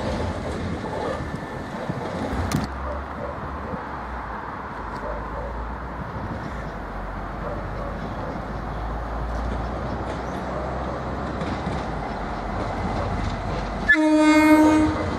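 A train running with a steady low rumble as it pulls away. Near the end, a train horn sounds once, a single steady note lasting about a second, from the approaching train.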